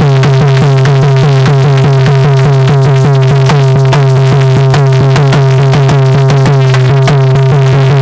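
Instrumental interlude of Indian folk devotional music: a fast repeating melodic figure over a steady low drone, with dholak drumming keeping a brisk rhythm.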